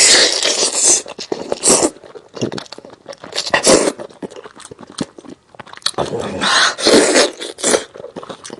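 Close-miked eating of steamed chicken: wet tearing and chewing noises with sharp smacking clicks, coming in irregular loud bursts about a second long.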